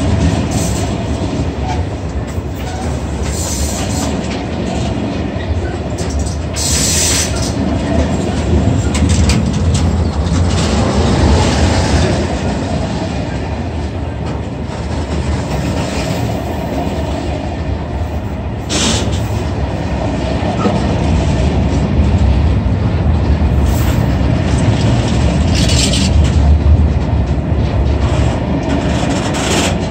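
Freight train of tank-container flat wagons rolling past close by: a steady, loud rumble of wheels on the rails with clickety-clack, and a few brief high-pitched bursts of noise.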